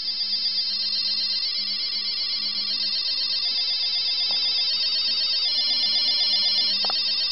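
A homemade bubble-LED wristwatch's alarm going off at its set time: the watch's buzzer beeps rapidly in high-pitched tones, its pattern changing every second or so, growing louder over the first second and then holding steady.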